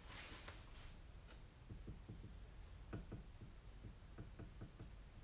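Near silence, with faint irregular ticks and creaks from a GearWrench 120XP 3/8-inch ratchet and its cheater pipe as they are slowly loaded against a digital torque adapter. The ticks come several times a second from about a second and a half in.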